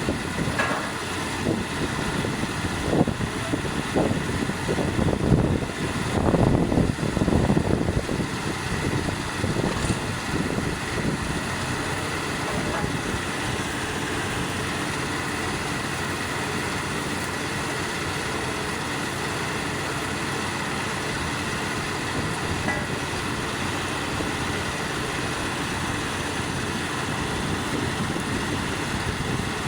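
Engines of a borehole drilling rig and its 18-bar air compressor running steadily, with a few knocks and louder surges in the first eight seconds.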